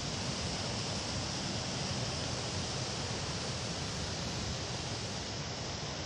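Steady rush of storm floodwater cascading down a hillside and over a stone retaining wall onto the street.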